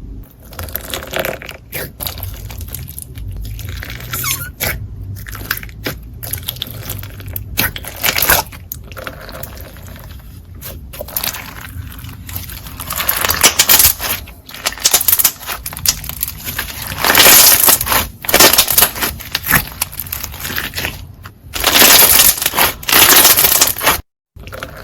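Slime being squeezed and pressed by hand: a run of crackles, pops and squishes in uneven bursts, with louder stretches in the second half. It cuts off briefly near the end.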